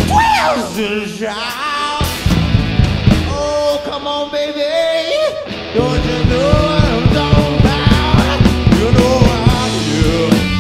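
Live blues-rock trio of electric guitar, electric bass and drum kit, with a male voice singing sliding notes in the opening seconds. About six seconds in the full band comes in louder with a steady drum beat.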